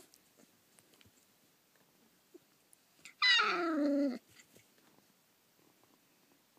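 A rough collie puppy gives one cry about three seconds in, lasting about a second and dropping sharply in pitch.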